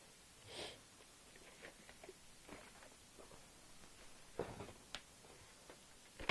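Faint handling sounds of VHS tapes: soft rustles and a few light plastic clicks and knocks as the cassette cases are moved, the loudest about four and a half seconds in.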